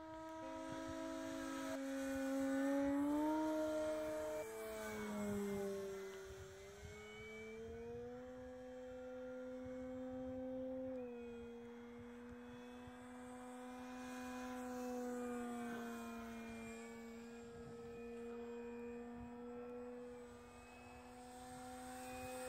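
Electric RC Pitts S2 biplane in flight, its Cobra brushless motor and propeller giving a humming whine. The pitch steps up and down with the throttle and slides down as the plane passes, about four to seven seconds in, then holds steady with one small drop about eleven seconds in.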